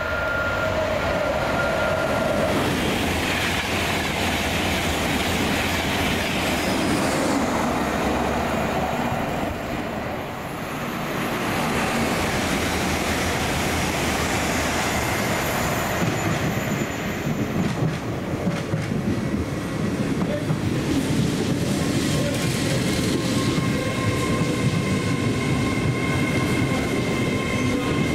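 A train running past on the rails, its wheels clattering over the track, a continuous loud rumble. A steady whine joins in over the last several seconds.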